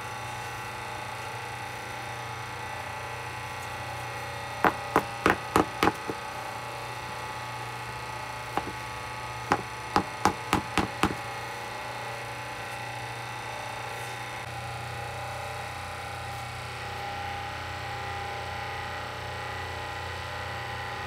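Two quick runs of about five sharp knocks on the hard disc of toilet paper that the hydraulic press has crushed solid, the first about five seconds in and the second about ten seconds in. A steady hum runs underneath.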